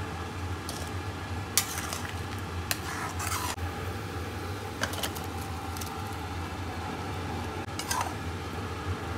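Spatula and bowl clinking and scraping against a steel pan a few times as pieces of besan chilla are tipped into bubbling gravy, over gravy sizzling and a steady low hum.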